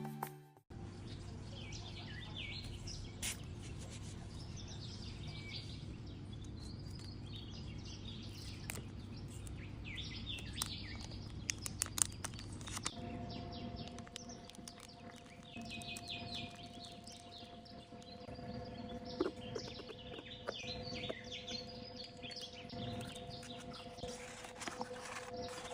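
Small birds chirping and twittering in short scattered bursts over a steady background hiss; about halfway through, a steady two-note hum joins in.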